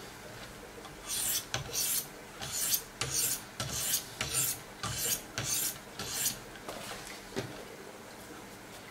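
Wicked Edge diamond sharpening stones scraping along the edge of a clamped Benchmade 484's M390 steel blade. There are about a dozen quick rasping strokes, roughly two a second, which start about a second in and stop about six seconds in.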